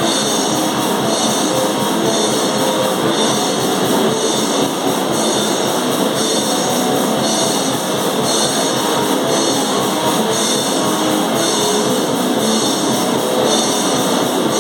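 Live hardcore noise-metal band playing loud and without a break: heavily distorted guitars over drum kit and crashing cymbals, all merged into a dense wall of sound.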